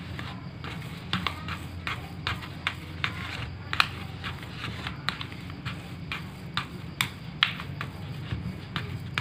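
Hands kneading and pressing a damp, crumbly bait mash in a bowl: irregular soft clicks, taps and scrapes of fingers and mash against the bowl, over a steady low hum.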